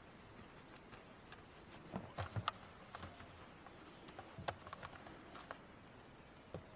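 Insects trilling steadily in high, thin tones from the riverside vegetation, with a few sharp knocks and clicks about two seconds in and again around the middle.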